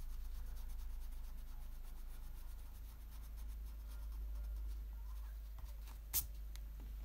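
Wax crayon rubbing back and forth on drawing paper in quick short strokes as a shape is colored in, with one sharp tap about six seconds in.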